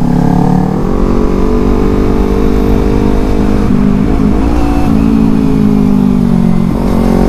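Kawasaki Z250's parallel-twin engine pulling steadily while riding, its pitch climbing slowly, with a brief dip about four seconds in and a drop in pitch near the end.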